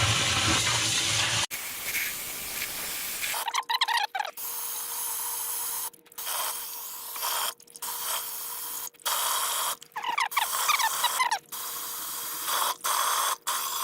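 Water running and spraying into a sewer ejector pump basin to raise the level for a float-switch test, a steady hiss with a faint steady tone, the sound cutting out briefly several times.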